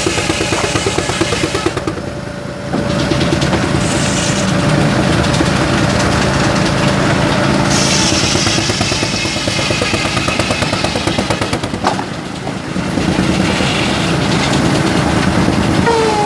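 Engine-driven sawmill running: a large engine's rapid, even beat with the saw's machinery noise over it. The sound dips briefly twice.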